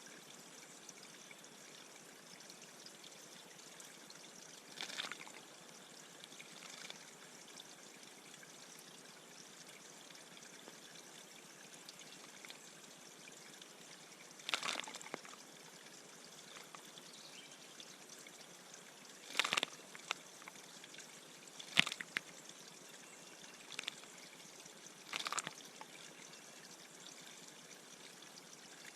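Water trickling steadily in a bird bath, broken about six times by brief, sharp splashes of the kind birds make while bathing.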